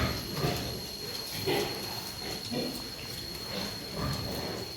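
Pigs grunting, in short separate calls about every half second to a second.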